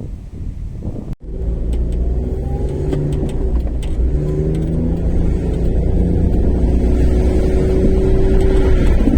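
Fire engine's engine running as the truck drives, a steady low rumble that grows slightly louder. Before it, about a second in, a sudden cut from a different sound.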